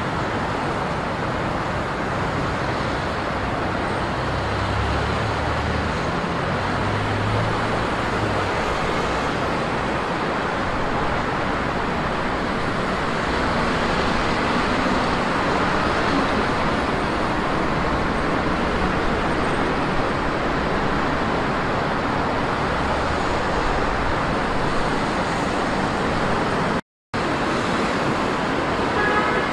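Steady rumble of road traffic, a continuous even noise with no distinct passing vehicle or horn; it drops out for a moment near the end.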